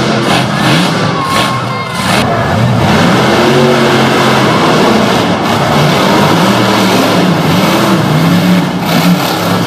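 Monster truck engines revving hard, the pitch climbing and dropping again and again as the trucks drive the course.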